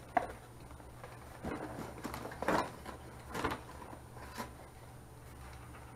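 Scattered rustles and knocks of cardboard packaging and a boxed speaker being handled and packed back into the box, over a steady low hum.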